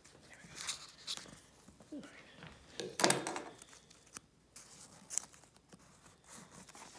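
Fingers handling and pressing the paper pages of a 1586 book: irregular rustles and crinkles of paper, the loudest about three seconds in.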